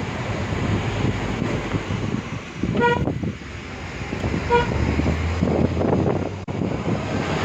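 A vehicle horn sounds two short toots about a second and a half apart, over the steady road and engine noise of a moving vehicle.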